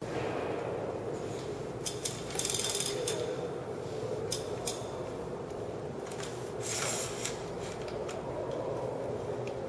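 Bicycle chain and drivetrain of a Birdy folding bike clicking and rattling as the rear swingarm and wheel are swung forward under the frame. There is a short metallic rattle about two seconds in, two clicks near the middle and another rattle near the end, over a steady low hum.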